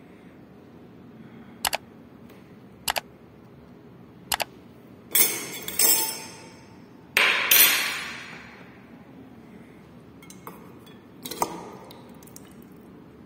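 Metal clinks and clanks as a tin can, a can opener and a stainless steel pot are handled on a table: three short sharp double clicks, then two louder, longer clattering clanks that ring on as they fade, and a few lighter knocks near the end.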